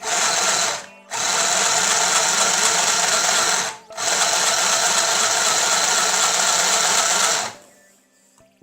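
Mini electric sewing machine running under foot-pedal control, stitching in three steady runs with brief stops about a second in and just before four seconds, then stopping near the end.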